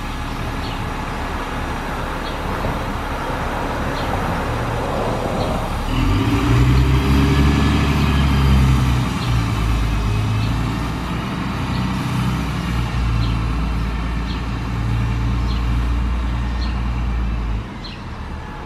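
Diesel engine of a New Flyer D40LF transit bus, a Cummins ISC, pulling away after standing at a light. Its low engine note comes up strongly about six seconds in, holds for about ten seconds, and drops away suddenly near the end.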